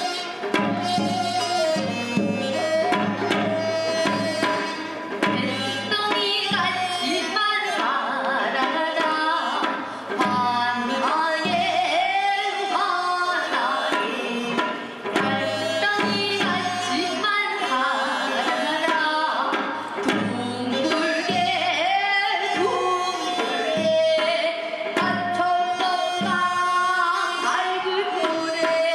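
Music: a melody line that bends and slides in pitch over a steady drum beat.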